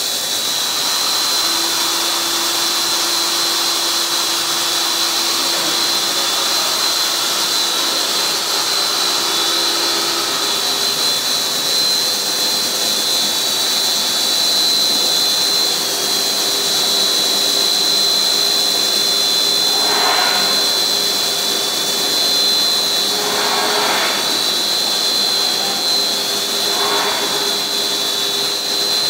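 HDPE blown-film extrusion machine running: a steady high whine over a loud, even hiss of air, with three brief sounds in the second half.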